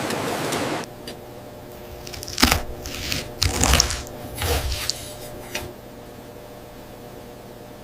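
A steady rushing noise that cuts off abruptly just under a second in, followed by a handful of sharp crunching, clattering handling sounds over the next few seconds.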